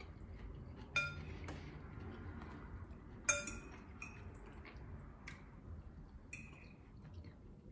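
Metal fork clinking and scraping against a bowl of pasta: two sharp ringing clinks, about a second in and just past three seconds, then a few lighter taps.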